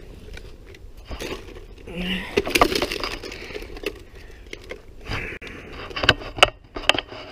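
Handling noise as a furry wolf puppet is picked up and moved about: rustling and scraping with a scatter of sharp clicks and knocks, loudest about two to three seconds in and again near the end.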